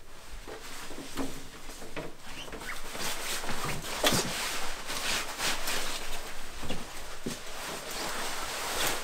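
Rustling and swishing of a long heavy coat as it is swung onto the shoulders and pulled into place, with the loudest swish about four seconds in.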